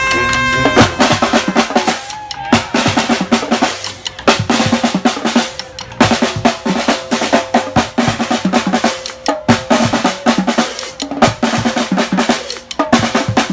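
A street brass band's drum section playing a busy groove on snare and bass drum, after the horns cut off a held chord just under a second in.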